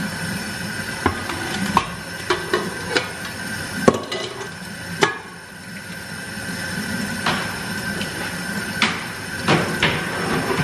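Kitchen clatter: dishes and utensils being handled and set down, a string of sharp knocks and clinks at irregular intervals.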